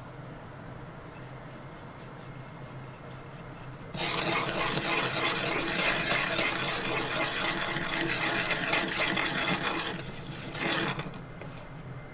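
Metal measuring spoon stirring a thick sesame-and-mayonnaise dressing in a wooden bowl, a steady, busy scraping and rattling. It starts about four seconds in and stops about seven seconds later.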